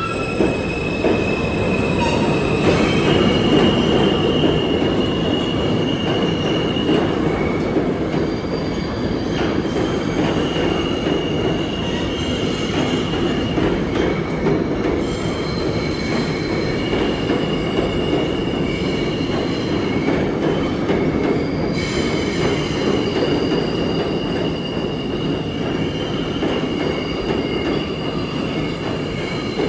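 New York City subway train running on the track with a steady rumble, its steel wheels squealing in several drawn-out high tones that come and go.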